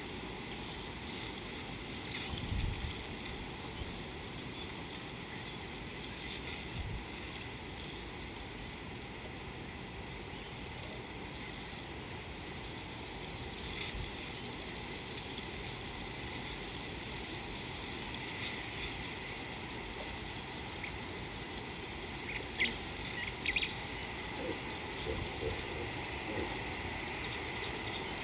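An insect, cricket-like, chirping in an even rhythm: short high chirps a little more than once a second, over a steady hiss of bush ambience.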